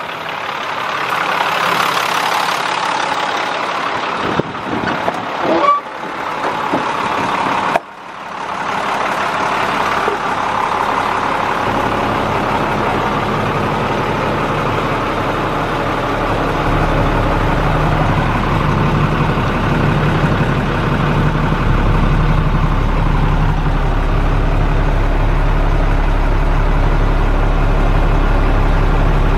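International 4400 truck's diesel engine idling steadily, with a few knocks and a brief dropout between about four and eight seconds in. In the later part the idle is heard from inside the cab, with a stronger low hum.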